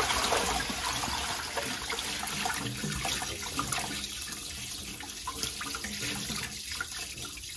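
Hot water poured from a stainless steel bowl onto a block of ice in a stainless steel sink, splashing and trickling over the ice. The pour is strongest at the start and slowly dies down.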